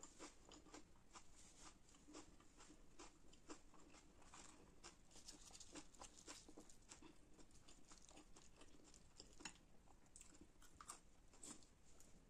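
Close-miked, quiet mouth sounds of someone eating bhatura and chickpea curry: soft, irregular chewing and smacking clicks, with a fresh bite near the end.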